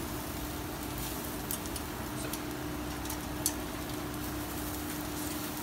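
Yakitori skewers sizzling on a commercial gas-and-charcoal grill, with scattered sharp crackles and clicks as metal tongs turn the skewers; the loudest click comes about three and a half seconds in. A steady low hum runs underneath.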